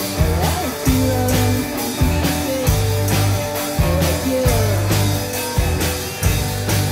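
Live rock band playing, with electric guitars, bass guitar, keyboards and drum kit. A heavy low bass note lands about once a second under sliding melodic lines.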